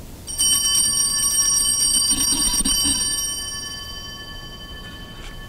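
Altar bells rung at the elevation of the host during the consecration: a rapid shaken ringing of several high bell tones for about three seconds, which then rings on and slowly fades.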